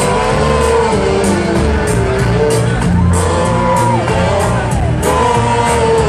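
Live band music heard from the audience in a large hall: a deep, rhythmic bass under long held melody notes that bend and slide.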